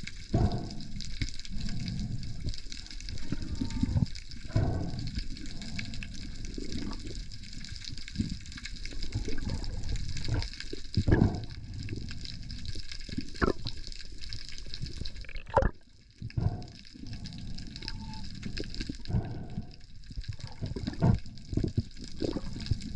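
Water sloshing and rushing, with swells of low rumble, scattered knocks, and a brief dip in the sound about sixteen seconds in.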